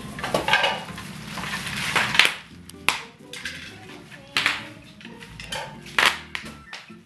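Hard plastic toy-kitchen pieces clattering and knocking together as they are handled. There are several sharp knocks at irregular intervals.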